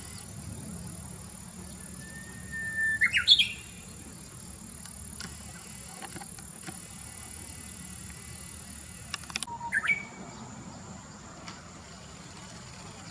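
Japanese bush warbler (uguisu) singing its 'hoo-hokekyo' song. A long held whistle breaks into a quick rising flourish about three seconds in, and a shorter phrase follows near ten seconds. A steady high hiss runs underneath and stops suddenly just before the second phrase.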